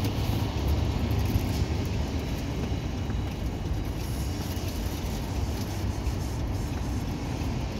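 Steady low rumble of a motor vehicle running close by.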